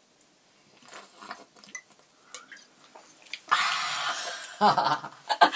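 A woman gulping grappa straight from the bottle: faint wet swallowing sounds, then about three and a half seconds in a loud, breathy exhale, "haa", as the strong spirit goes down, followed by a short voiced "ah".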